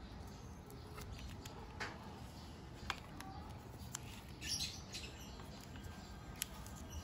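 Faint close handling sounds of wiring work: electrical tape being stretched and wrapped around two joined wires, crinkling, with a few small clicks.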